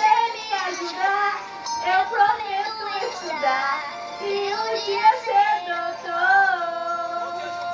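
A sung song, a lead voice carrying a wavering melody over the backing music, settling into one long held note near the end.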